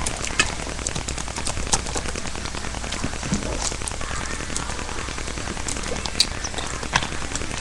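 Steady hiss with scattered faint clicks and crackles over a low hum.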